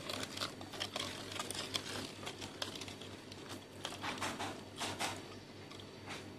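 Metal spoon stirring a liquid fish-sauce dipping sauce in a ceramic bowl: light, irregular clinks and scrapes of the spoon against the bowl.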